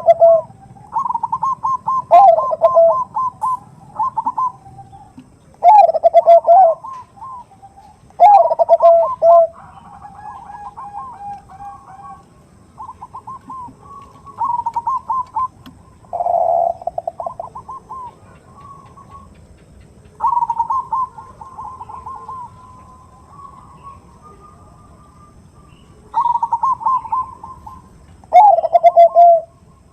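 Bangkok zebra doves (perkutut bangkok) cooing over and over. Each phrase is a quick run of short notes that often ends in a louder, lower coo, and some phrases are fainter than others. It is the cooing that keepers play as a lure to make other perkutut answer.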